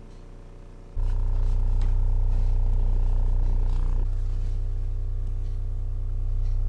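Bare Monitor Audio 10-inch subwoofer driver (BP404-10c) playing a steady low tone in free air during an excursion test, its cone moving far. The hum jumps much louder about a second in and changes slightly about four seconds in.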